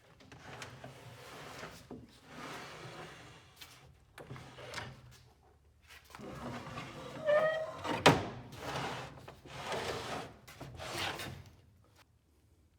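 Wooden desk drawers scraping as they slide in and out. A short squeak comes about seven seconds in, followed by a sharp knock.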